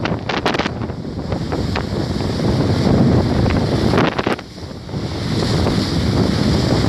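Rough sea surf churning and washing ashore in a strong wind, with heavy wind buffeting on the microphone. A few sharp splashy crackles come near the start and again about four seconds in; the wash eases briefly just after, then builds again.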